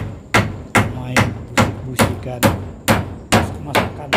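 Hammer striking nails into wooden wall boards: a steady run of about ten sharp blows, two to three a second.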